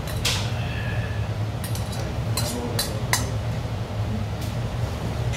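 Metal chopsticks clinking against a stainless-steel bowl, a handful of light clinks in the middle seconds, over a steady low hum.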